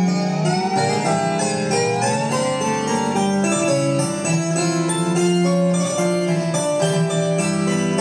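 Music from a vinyl record on a pedal-powered record player, played through an amplifier that also runs off the pedal power. The pitch and speed warble as the pedalling speed changes, sliding up about a second in.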